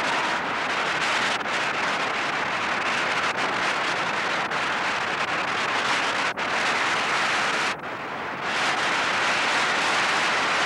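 Audience applauding steadily, the sound briefly dulling about eight seconds in.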